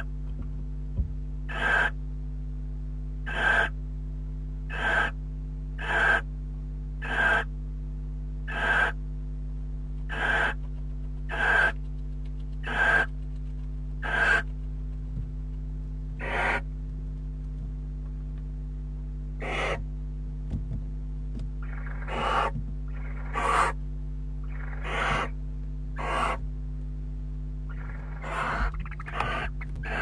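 Barn owl giving short hissing calls over and over, about one every second and a half, falling silent for a few seconds midway, then calling again more irregularly with some longer calls. A steady low electrical hum runs underneath.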